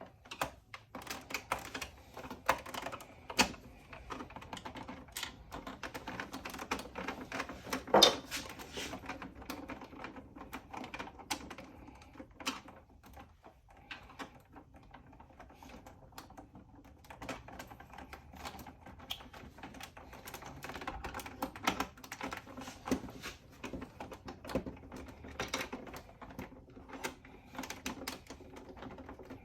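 Irregular small clicks and taps of a Sax-A-Boom's plastic housing being handled and screwed back together, with one louder knock about eight seconds in.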